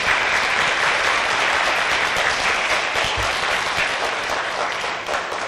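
Audience applauding, a dense steady clapping that dies down near the end.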